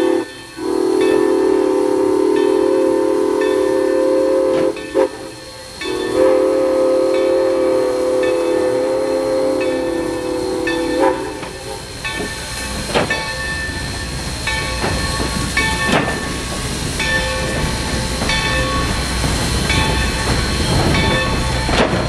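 Steam locomotive whistle sounding long blasts of several notes at once as the train approaches a grade crossing, stopping about eleven seconds in. A grade-crossing bell rings steadily throughout. After the whistle stops, the passenger train rumbles past with scattered clanks from the wheels.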